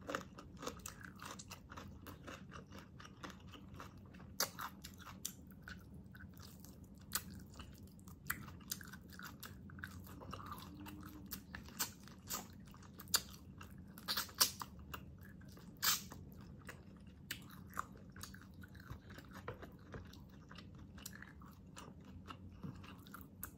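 A person chewing and biting braised pork hock adobo, with many irregular sharp clicks of mouth and teeth.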